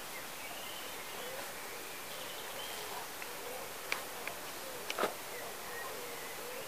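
Quiet countryside air with a steady hiss and faint distant bird calls, broken by a few light clicks and a brief rustle about four and five seconds in.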